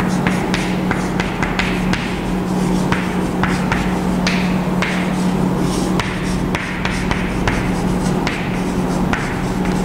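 Chalk writing on a chalkboard: irregular taps and short scratchy strokes as letters are written, over a steady low hum.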